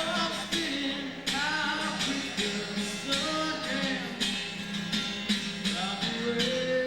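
Live rock band playing a slow song between sung lines, with drums keeping a steady beat under guitar chords and a bending lead line that settles into a held note near the end.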